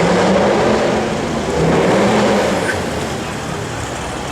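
Mercedes-Benz C63 AMG V8 exhaust as the car revs and accelerates, the engine note swelling twice: at the start and again about two seconds in.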